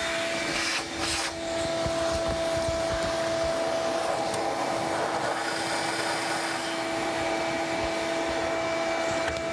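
Shop vac running steadily with a constant hum, its hose sucking drilling shavings out of a freshly drilled hole in a diesel engine's intake manifold.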